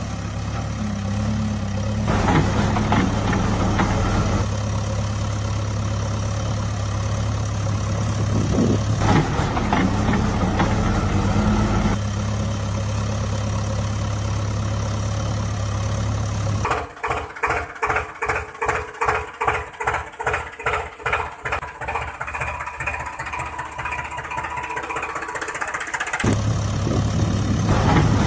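Heavy diesel engine running steadily at low revs. About two-thirds of the way in, the steady running gives way for several seconds to an even pulsing of about two beats a second, then the steady running returns near the end.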